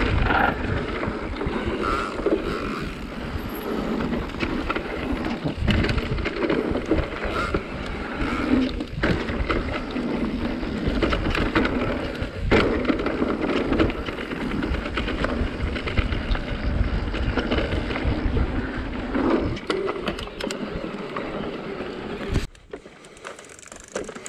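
Mountain bike rolling down a dirt forest trail: a steady rumble of tyres on the ground, with rattling knocks from the bike over bumps. It drops much quieter near the end.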